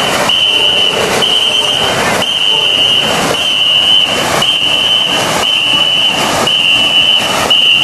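Racing boat crew paddling in unison: a whistle sounds a short, even blast about once a second to set the stroke, and the paddles splash through the water in time between the blasts.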